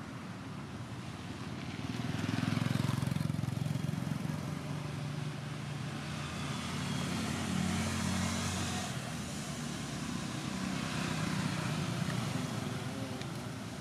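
Road traffic: three motor vehicles pass one after another, each a swell of engine hum and tyre hiss that rises and fades away.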